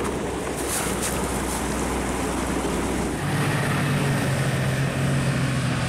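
Wind noise on the microphone over a low engine hum. About three seconds in, the sound changes to a steadier, closer engine note from a snow vehicle (snowcat or snowmobile) running.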